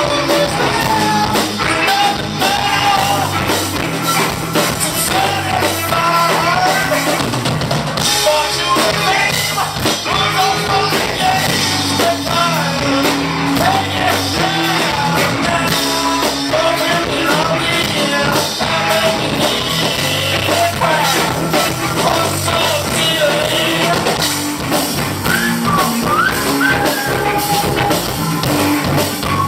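Rock band playing live: drum kit, bass and guitars, with singing over the top.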